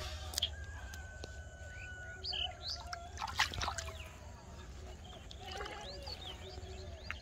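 Small birds chirping and calling, many short rising and falling chirps, with a held whistle-like tone for about two seconds early on. A few sharp clicks stand out, the loudest around three and a half seconds in, over a low steady hum.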